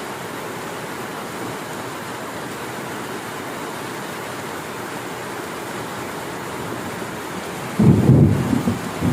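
Steady hiss of heavy rain, then nearly eight seconds in a sudden loud, low rumble of thunder breaks in and keeps rolling.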